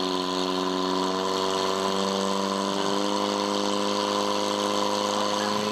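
Portable fire pump's engine running at a steady speed, driving water into the attack hoses as they fill; its pitch edges slightly up near the end.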